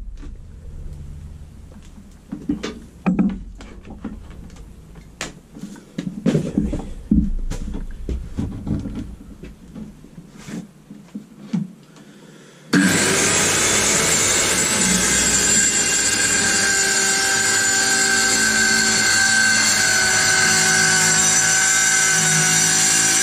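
Scattered handling knocks and clicks at first. About 13 seconds in, an Evolution 165 mm TCT multi-material circular saw comes in suddenly and runs steadily with a high whine, cutting a shallow rip through plywood.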